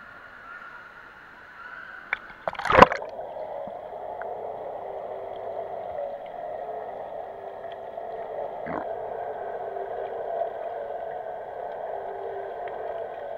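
Camera plunging into swimming-pool water with a splash about two to three seconds in, then a steady, muffled rush of water heard from below the surface until it comes back up at the very end.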